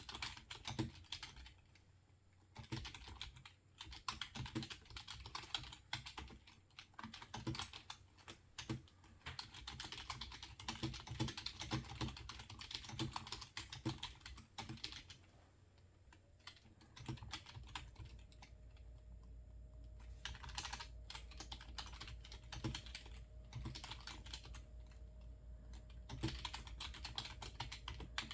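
Typing on a computer keyboard: fast runs of key clicks with short pauses, thinning out to a few scattered strokes in the second half. A low steady hum starts a little past halfway and continues under the keys.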